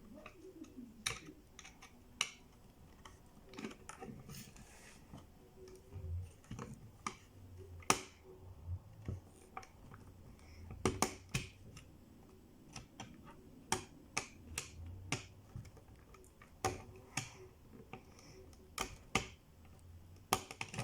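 Irregular small clicks and knocks of a screwdriver and plastic toy car parts being handled while screwing a toy car back together.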